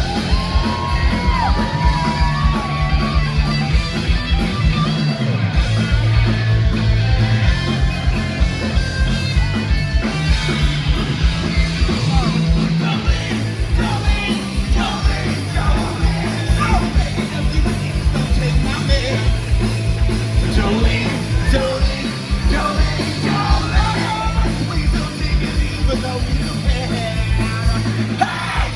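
Rock music played by a full band, with a steady drum beat, bass and guitar, and shouted singing over the top.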